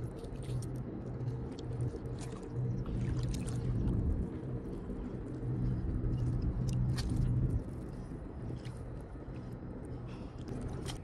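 Hands working in shallow water and sandy mud while clam digging: scattered clicks, scrapes and small splashes over a steady low rumble that drops away about three-quarters of the way through.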